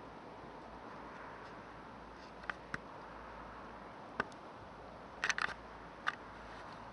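Steady hiss of background noise broken by a handful of short, sharp clicks, several of them in a quick cluster past the middle.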